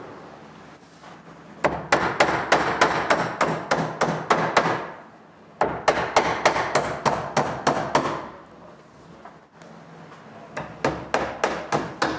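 Hand hammer driving galvanized finish nails into eastern white pine boards: three runs of quick blows, several a second, with short pauses between runs.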